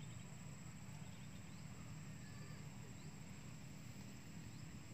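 Quiet outdoor background in wet grassland: a faint steady low hum with a thin high whine, like insects droning, and a few faint chirps.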